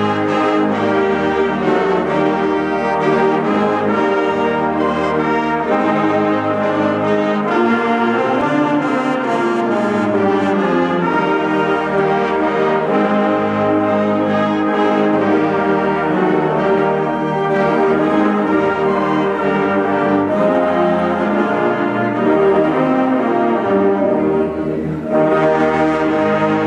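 Instrumental background music with sustained, held chords.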